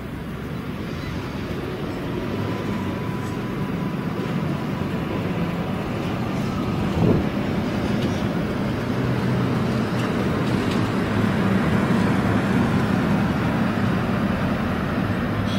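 A motor vehicle's engine running, growing slowly louder, with a single knock about seven seconds in.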